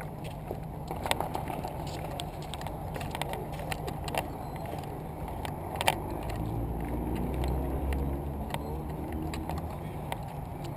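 Sharp reports of distant gunfire at irregular intervals, the loudest about six seconds in, over a steady vehicle engine drone that shifts in pitch midway.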